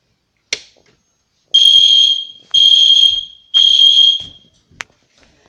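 EST Genesis ceiling-mount fire alarm horn strobe, its cover removed, sounding three loud high-pitched blasts about a second apart. A sharp click comes just before the blasts and another short click near the end.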